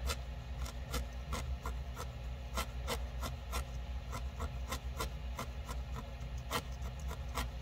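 A fine 40-gauge felting needle in a wooden handle stabbing again and again into a small wad of core wool on a felt pad: a quick, uneven series of short soft pokes, about three a second.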